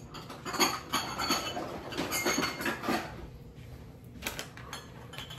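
Kitchen clatter: a quick run of knocks and clinks lasting about two and a half seconds, then a single knock near the end, like dishes and kitchen items being handled and set down.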